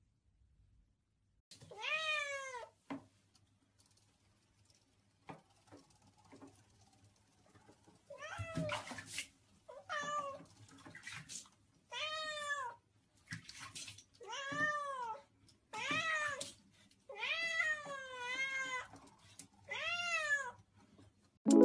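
A cat meowing over and over in drawn-out meows that rise and fall in pitch. A single meow comes near the start, then from about eight seconds in a meow comes every second or two.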